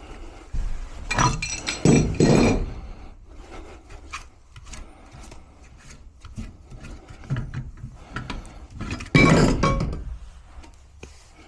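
Metal clinking and clanking of pipe wrenches and a furnace gas valve as the freshly loosened valve is worked off the gas pipe. The clanks come in clusters, the loudest about nine seconds in, with lighter ticks between.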